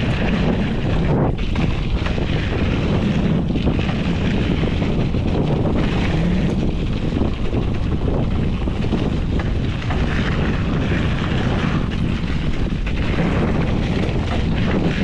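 Wind buffeting the microphone of a mountain bike's ride camera, steady throughout, mixed with the rumble of knobby tyres rolling over a dirt trail.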